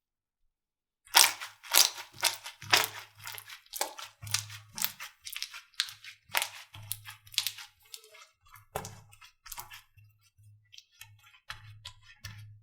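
Slime being squeezed and pressed by hand, giving a quick run of sharp crackling pops and snaps that starts about a second in and grows sparser toward the end.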